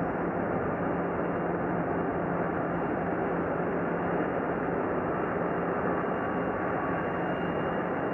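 Steady engine noise on an airport apron, muffled and dull-toned as on an old film soundtrack, with no single event standing out.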